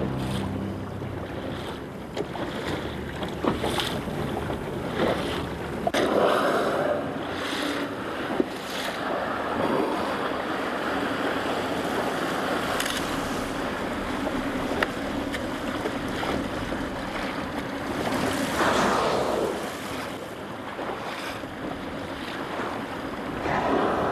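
Wind buffeting the microphone over choppy open sea, with water slapping and splashing around a small boat and surfacing humpback whales. Near the end comes the rushing whoosh of a humpback's blow.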